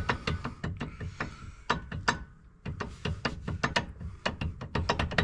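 A rapid run of sharp mechanical clicks, several a second, with a brief lull about two seconds in.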